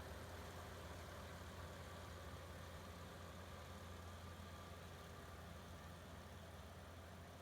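Rice combine harvester's engine running steadily, a faint low drone that holds even throughout with no revving.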